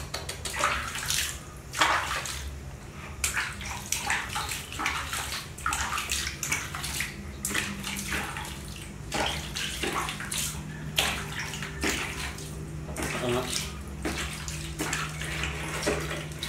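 Water splashing and dripping in irregular strokes as a hand scoops water from a plastic dipper and washes it over a baby macaque, over a steady low hum.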